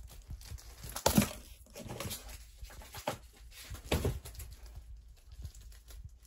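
Soft flapping rustles made to imitate a bird's fluttering wings and tease a cat, in a few short bursts, the loudest about a second in and about four seconds in.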